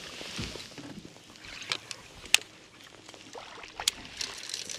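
A hooked bass splashing at the surface beside a boat as it is netted: a brief wash of splashing, then a few sharp knocks and clicks of tackle and net against the boat.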